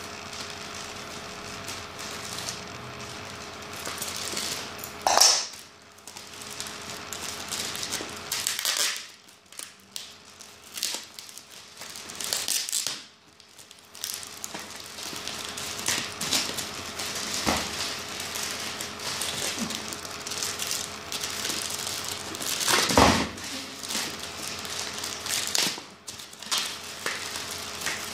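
Plastic courier mailer bag crinkling and rustling in irregular bursts as it is cut open with scissors and then pulled and torn apart by hand. There are a couple of louder crackles, about five seconds in and again near the end.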